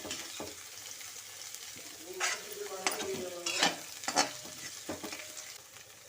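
Chopped vegetables and frozen peas sizzling in hot oil in a pan while a spatula stirs them, scraping and knocking against the pan several times in the middle.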